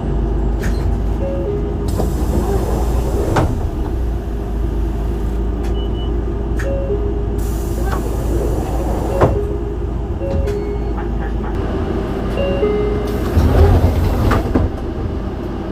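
Mitsubishi Fuso Aerostar city bus idling with a steady low rumble, while its two-note door chime sounds several times, a higher note followed by a lower one. A few sharp knocks break in.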